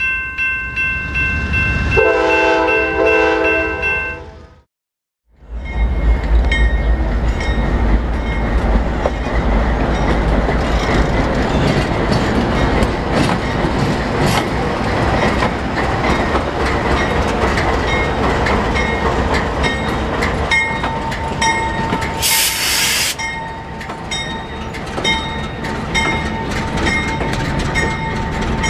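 A few seconds of intro music, a short gap, then a lone CSX diesel locomotive rolling slowly past close by in reverse with no cars: a deep engine rumble with wheel and rail noise. A short hiss comes about 22 seconds in.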